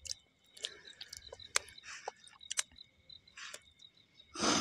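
Crickets chirring steadily in the background, with scattered light clicks and scrapes of spoons on steel plates, and a short loud rustle near the end.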